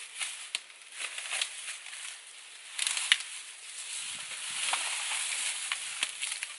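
Dry leaf litter and twigs crackling and rustling underfoot and under hand as a person moves through undergrowth, with irregular sharp snaps. The loudest is a crack about three seconds in.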